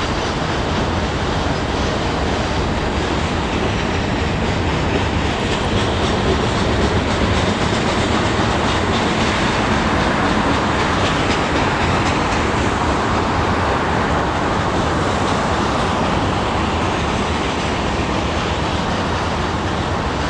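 Freight cars of a Canadian National train rolling past on the rails: a steady noise of wheels on track with faint repeated clicks.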